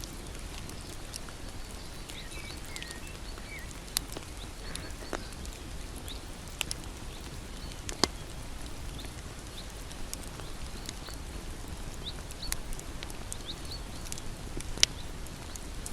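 Bonfire crackling: a steady hiss and rumble of burning wood with scattered sharp pops and snaps. The loudest snaps come about eight seconds in and near the end.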